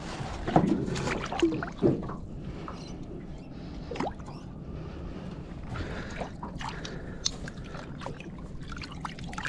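Water splashing and dripping as a large flathead is held in the water at the side of a small aluminium boat for release. The louder splashes come in the first two seconds, then scattered small drips and ticks.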